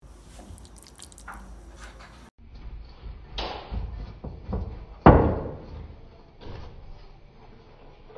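A few knocks and thuds of a glass baking dish being handled in the kitchen. The loudest is a sharp knock about five seconds in that rings off briefly, with lighter knocks before and after it.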